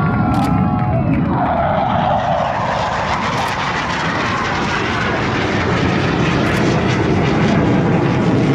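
Jet engines of BAE Hawk jet trainers flying in formation: a loud steady roar, with a falling whine about a second and a half in.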